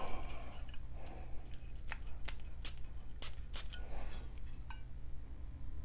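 Perfume atomizer of a Bentley for Men Silverlake bottle spraying onto a paper test strip: a few quick hissing pumps between about two and three and a half seconds in.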